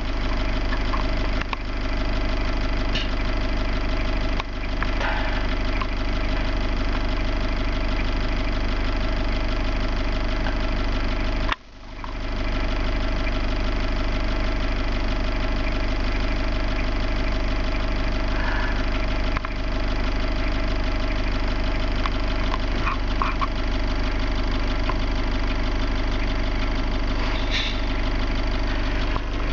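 A vehicle's engine idling steadily, heard from inside the cabin. The sound dips briefly about twelve seconds in.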